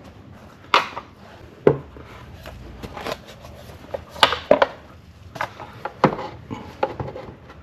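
Irregular sharp plastic clicks and knocks, with some rubbing, as a new air filter is worked into the grooves of a plastic air-filter housing cover.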